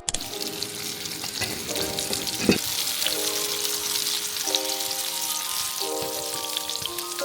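Food frying in a pan: a steady crackling sizzle full of small pops, with one brief knock about two and a half seconds in.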